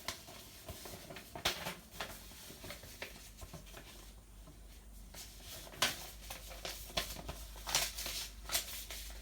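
A paper instruction sheet being unfolded and handled: irregular rustling and crinkling with several sharper crackles.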